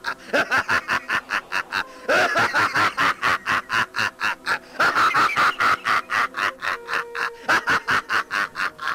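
A man's loud, drawn-out villain's laughter in rapid ha-ha pulses, about five a second, breaking into fresh peals about two and five seconds in.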